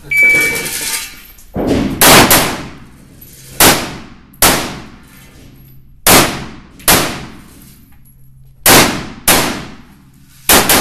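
Shot-timer start beep, then a string of about ten AR-15-style rifle shots, fired singly and in quick pairs. Each shot is followed by a long echo off the walls of an indoor range.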